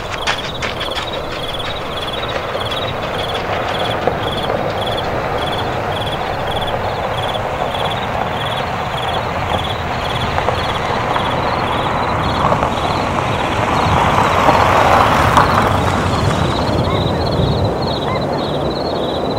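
Crickets chirping in a steady, even rhythm of high-pitched pulses over a rushing background noise. The noise swells about two-thirds of the way through.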